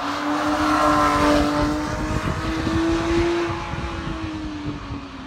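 Porsche 911 GT3 (991) with its naturally aspirated flat-six passing at speed on track. The engine note rises slightly in pitch, is loudest about one to three seconds in, then drops in pitch and fades as the car goes by.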